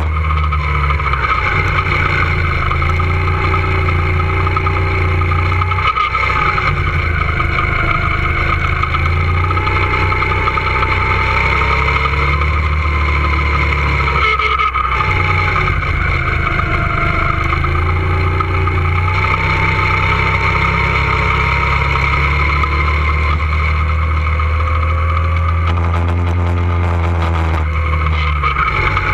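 Go-kart running at speed, its motor sound gliding up and down in pitch as it speeds up and slows, with brief drops in level about six seconds in, about fifteen seconds in and near the end.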